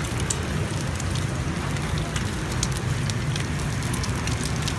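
Rice-flour cake cubes and egg sizzling in hot oil on a large flat frying pan: a steady hiss with scattered sharp crackles and pops, over a steady low rumble.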